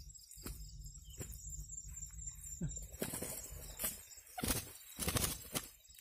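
Rustling of a nylon net and dry grass being handled, with a netted quail fluttering its wings in several short bursts, mostly in the second half.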